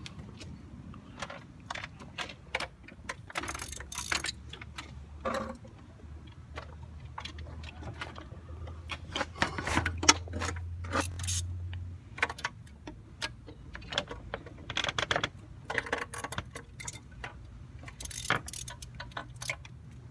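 Metal hand tools clinking and clicking irregularly against metal as the bolts of a car's thermostat housing are worked on.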